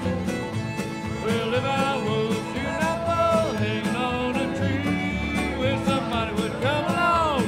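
Old-time string band playing a contra dance tune live, with fiddle over guitar, banjo and upright bass and a steady beat.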